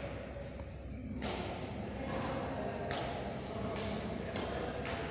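Badminton rackets striking a shuttlecock, several sharp hits a second or so apart, echoing in a large sports hall over a steady background hum.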